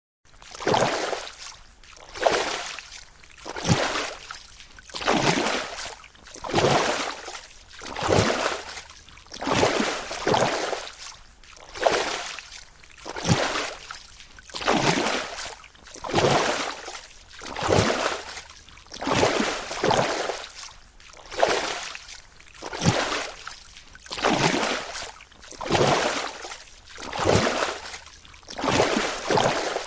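Water rippling and swishing around a boat in regular surges, about one every second and a half.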